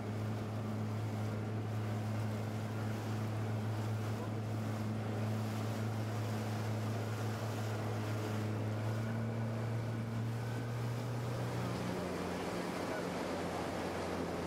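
Motorboat engine running at a steady low hum, with wind buffeting the microphone and water rushing past the hull. The engine note changes about twelve seconds in.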